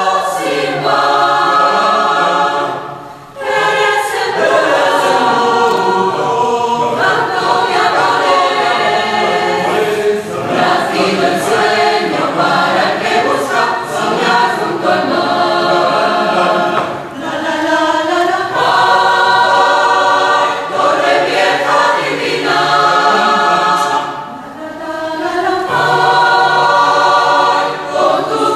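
Mixed choir of men's and women's voices singing a habanera in close harmony, unaccompanied, with short breaks between phrases about three seconds in and again near the end.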